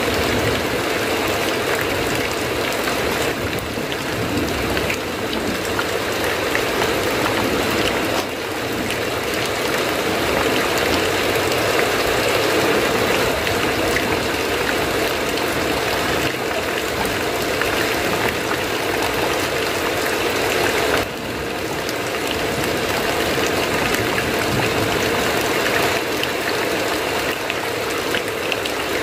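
Steady heavy rain falling on a roof, an even hiss that dips briefly in level twice.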